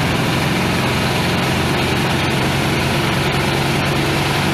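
Trailer-mounted Öztürkmen tomato paste machine (pulper-strainer) running steadily, its motor humming under load as boiled tomatoes and red peppers are pressed through it.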